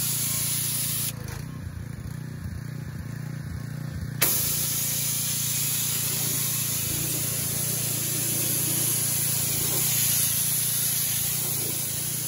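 Pressure-washer spray from a Ridge Washer undercarriage cleaner blasting water under a car: a steady hiss of water with a steady hum beneath. About a second in the spray goes quieter for around three seconds, then comes back at full strength with a sharp click.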